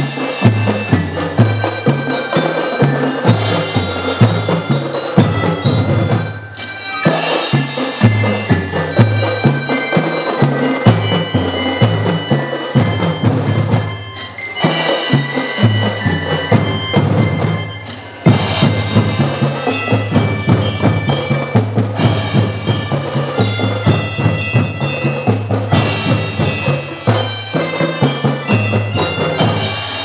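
A children's marching band playing, with a steady beat of drums and a bell-like mallet-percussion melody on top. The music drops away briefly a few times between phrases.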